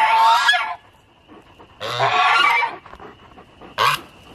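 Geese honking: a long call at the start, another about two seconds in and a short one near the end, a gander's warning aimed at a nearby dog. Spring peepers trill faintly and steadily underneath.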